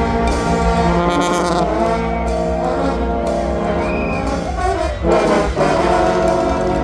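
A live band playing a tune: sustained, gliding horn melody notes over a steady low drum beat.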